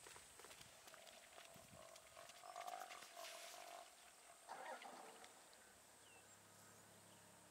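A faint, drawn-out animal call holding roughly one pitch for about three seconds, then a shorter call about four and a half seconds in, from the wild dogs or the hyena facing off at the waterhole.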